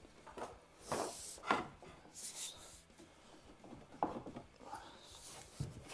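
Convertible styling bar being shifted against the car's interior trim and body, making several short scrapes and rubs with a small knock near the end.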